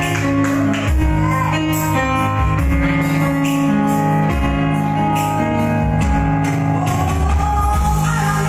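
Live backing music: held chords over a bass line and a steady beat, with no singing for most of it; a woman's singing voice comes back in near the end.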